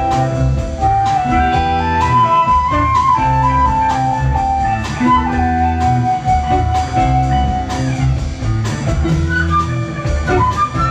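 Live rock band in an instrumental passage: a flute plays a melody of long held notes that step up and down over electric guitars, bass and steady drums.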